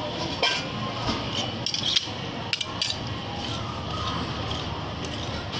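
Metal spatulas scraping and clinking on the frozen steel plate of a rolled-ice-cream stand as the thin layer of ice cream is spread out. Several sharp clinks come in the first three seconds, then steadier scraping.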